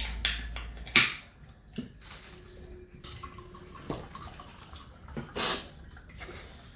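Wet splashing and short knocks and clatters of bowls and dishes as a meal is eaten by hand, with a sharp clatter about a second in.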